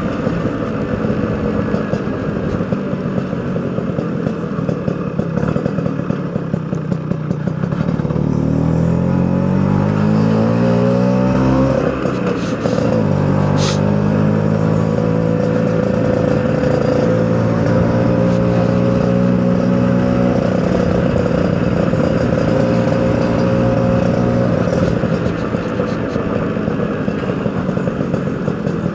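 Two-stroke engine running on the move: the revs climb from about eight seconds in, drop sharply near twelve seconds as a gear changes, then hold fairly steady with a gentle rise later on. A single short click comes just after the gear change.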